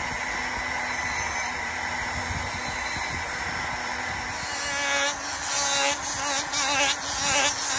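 Foredom flex-shaft rotary tool running steadily while carving a wooden knife handle. About five seconds in, the sound changes to a louder, hissier rasp that comes and goes in short strokes as a sanding attachment is worked over the handle.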